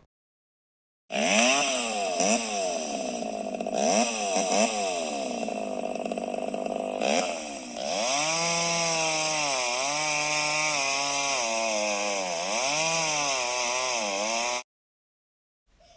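Chainsaw engine revving, its pitch rising and falling over and over. It starts about a second in and cuts off suddenly near the end.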